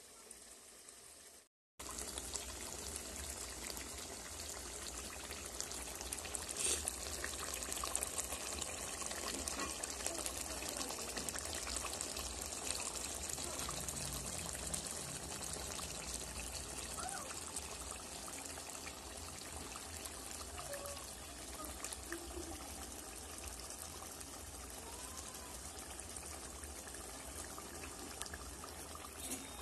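Mutton curry sizzling and bubbling steadily in oil and its own juices in a kadai on a low gas flame, the meat at the slow-frying (kosha) stage. It starts after a second or two of silence.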